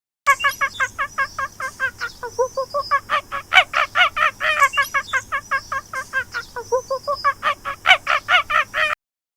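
Geese honking in a fast, continuous run of short calls, several a second, that starts just after the beginning and stops abruptly near the end.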